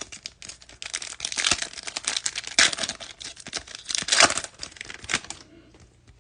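Foil wrapper of a Topps Fire trading-card pack being torn open and crinkled by hand, a dense crackling that stops near the end.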